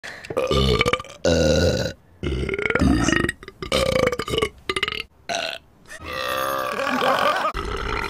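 Cartoon reindeer belching: a run of about six loud, drawn-out burps one after another, the last one long and wavering.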